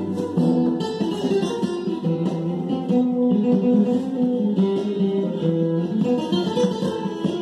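Flamenco guitar music, plucked and strummed, with occasional sharp taps.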